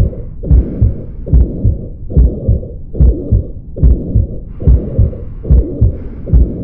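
Recorded heart sounds at the cardiac apex, beating evenly at about 70 a minute, with a systolic murmur. The murmur starts right after a weakened first heart sound and fills almost all of systole, the picture of mitral valve insufficiency (mitral regurgitation).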